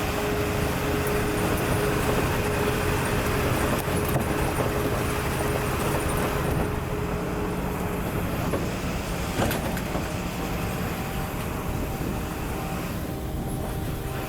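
Steady running of a motor vehicle: engine hum with road noise.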